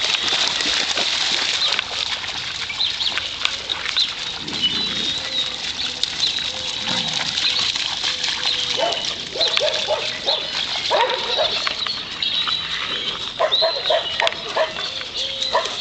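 Dogs barking in short bursts, thickest from about halfway on, over a steady hiss.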